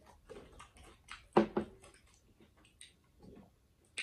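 Close-miked eating sounds: chewing and small wet mouth clicks, with two loud gulps of a drink about a second and a half in.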